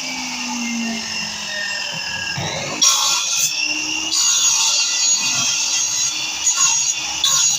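Power mitre saw cutting wood: a high-pitched blade whine over sawing noise, with a brief change in pitch about two and a half seconds in and a louder cut starting just after.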